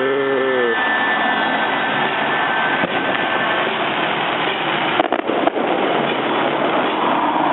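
Fireworks display: a steady, dense rushing crackle, with a quick cluster of sharp bangs about five seconds in.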